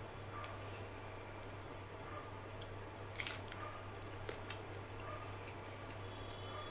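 Wet squishing of rice and dal being kneaded and scooped by hand on a plate, with close-up chewing and scattered soft mouth clicks and smacks. A steady low hum runs underneath.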